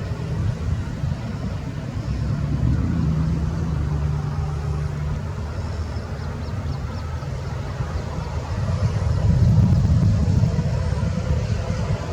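Road traffic on a major road bridge: a steady low rumble that swells louder about three-quarters of the way through as vehicles pass.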